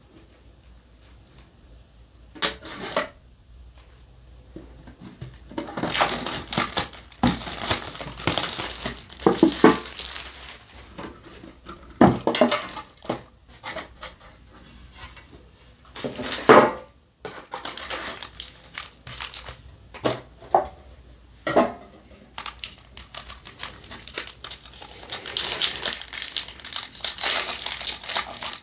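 Plastic shrink-wrap crinkling and tearing as it comes off a metal trading-card tin, with a few sharp knocks of the tin and its lid. Near the end a foil booster pack crinkles as it is torn open.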